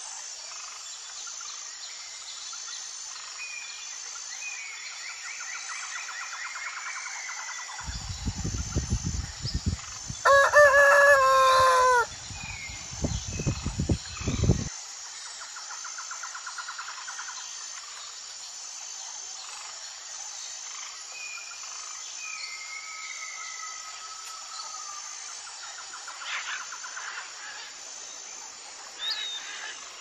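Birds chirping and trilling, with one loud drawn-out call of about two seconds about ten seconds in, held level and dropping at its end. Low rumbling comes and goes around that call.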